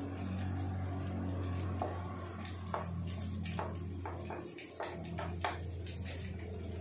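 Wooden spatula scraping and tapping chopped carrot and garlic off a wooden cutting board into a frying pan, a series of light knocks and scrapes, over a steady low hum.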